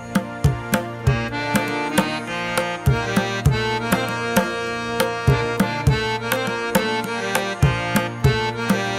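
Background music: a steady drum beat under sustained melodic tones.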